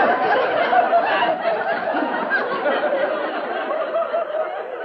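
Studio audience laughing: a sustained wave of many people's laughter on a sitcom soundtrack, easing off slightly toward the end.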